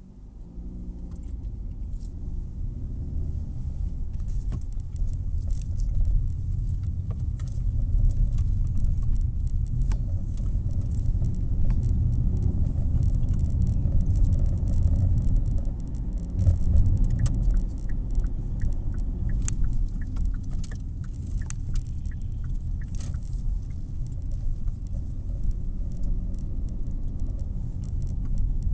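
Car engine and tyre rumble heard from inside the cabin. It grows louder over the first few seconds as the car pulls away from a stop, then runs steadily while driving. Faint small rattles and clicks from the interior are heard throughout.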